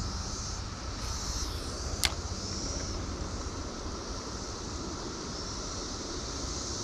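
Steady rush of flowing river water mixed with wind on the microphone, with one sharp click about two seconds in.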